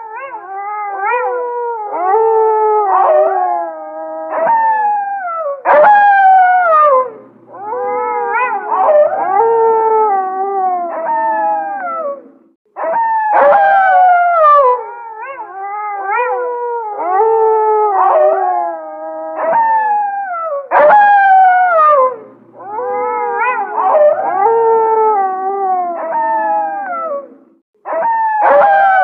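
Grey wolves howling in chorus: several howls overlap at once, most gliding down in pitch, mixed with shorter broken calls. The chorus breaks off briefly about halfway through and then starts over.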